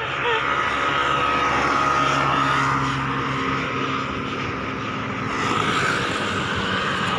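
Road traffic: a motor vehicle's engine running close by over steady traffic noise, its hum easing off about halfway through.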